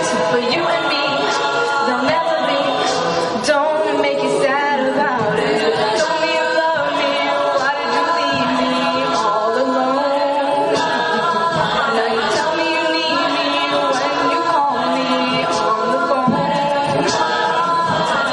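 A mixed a cappella group of mostly female voices singing together in harmony, with no instruments.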